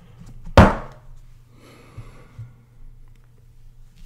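A sharp knock about half a second in as the tarot deck is put down on the cloth-covered table, followed by a faint rustle and two light taps of cards being handled and slid on the cloth.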